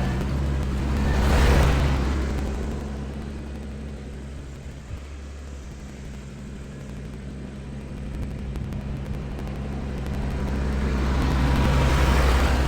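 Tractor engine running steadily under load while grading with a box blade, swelling louder about a second and a half in and again near the end.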